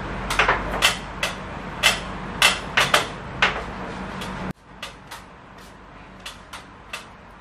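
Sharp plastic clicks and knocks, about eight in the first four seconds, over a steady low hum, as the plastic parts of a Daikin inverter air conditioner's indoor unit are handled. A little past halfway the sound drops abruptly, and only faint clicks follow as the blower wheel is lifted out.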